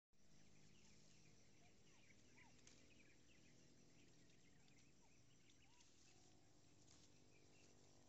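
Near silence: faint outdoor ambience with a steady low hum and scattered faint bird chirps.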